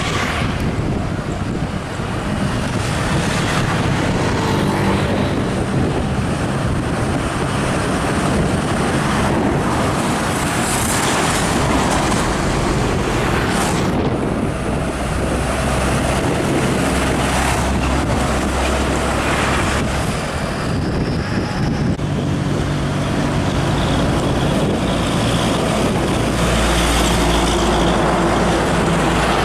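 Heavy diesel container trucks driving by on a road: a steady engine drone with tyre and traffic noise. A deeper engine hum grows stronger about halfway through and again near the end.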